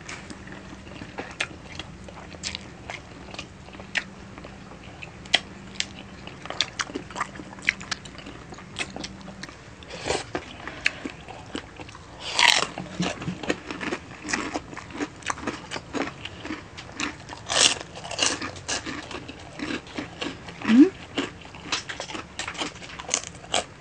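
Close-miked eating: wet lip smacks, sucking and chewing from two people eating spicy adobo chicken feet and rice by hand, irregular and steady, with a few louder smacks about halfway through.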